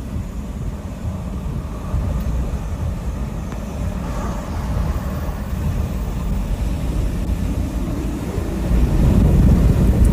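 Strong hurricane wind buffeting the microphone: a loud, rough low rumble that grows louder near the end.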